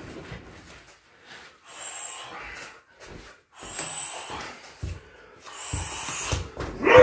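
A man breathing hard between shin kicks: three hissing breaths about two seconds apart, some with a thin whistle.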